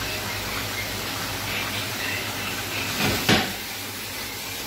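Mushrooms sizzling steadily in a pan as the wine cooks off, with one sharp metal clank just after three seconds in as a frying pan knocks against the stovetop.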